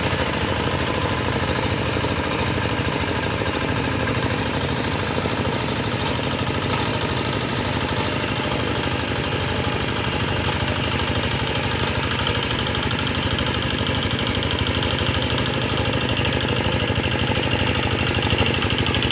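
Two-wheel hand tractor's single-cylinder diesel engine running steadily under load as it pulls a harrow through paddy mud.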